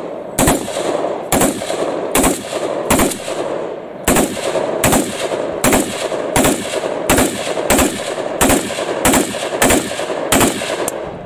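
AKS-74U carbine firing 5.45×39 mm rounds as steady single shots, about one shot every three-quarters of a second, each sharp crack trailing off briefly.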